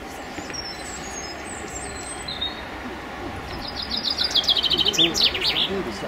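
A small songbird singing: faint high chirps early on, then from about three and a half seconds in a fast run of high notes, ending in a few louder, lower notes as a closing flourish.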